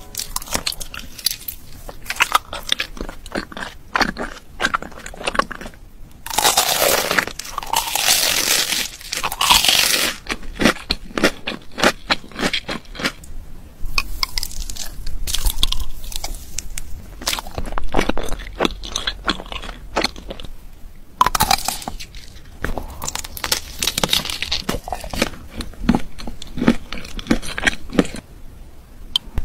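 Close-miked ASMR eating: a person biting into and chewing crunchy food in uneven bursts of crunches, the densest, most crackly crunching about seven to ten seconds in.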